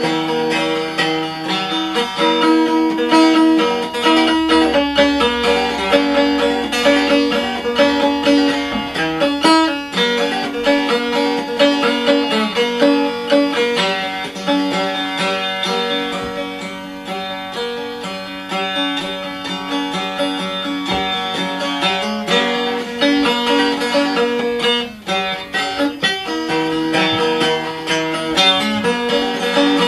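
Five-string maple syrup can banjo (canjo) being played: a tune of quickly picked, ringing notes.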